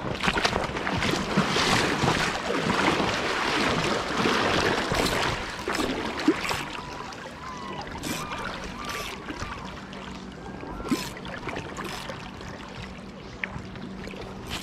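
River water rushing and splashing around a wader standing in the current, louder for the first several seconds and then settling, with a few short sharp clicks.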